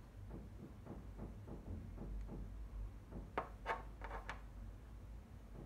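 Wooden lacing beads clicking faintly as they are handled, knocking against each other and the tin tray, with a quick run of four or so sharper clicks about three and a half seconds in.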